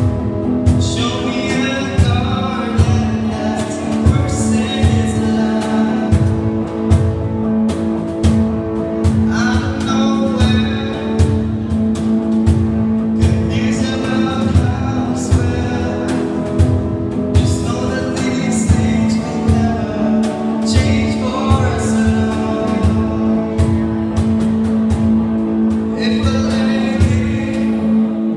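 Live band playing a song: vocalists singing over strummed guitar and a steady drum beat.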